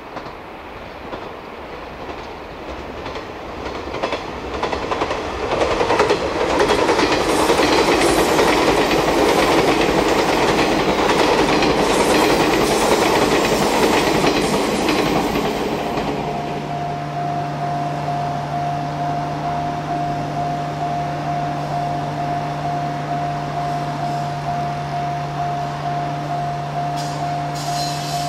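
A JR West 381 series Yakumo electric limited express train approaching and passing. Its running noise and wheel clatter build over about six seconds, stay loud for about ten and then ease off. From about halfway, a steady low hum with a higher steady tone over it takes over.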